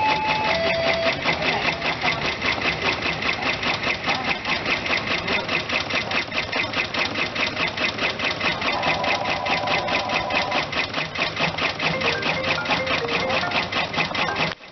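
Endurance II multi-needle embroidery machine stitching a design, a fast, even run of needle strokes.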